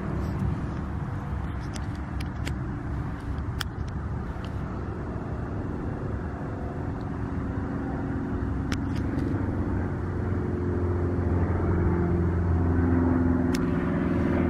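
A motor vehicle's engine running steadily, its low hum growing louder over the last few seconds, with a few sharp light clicks scattered through, most of them in the first few seconds.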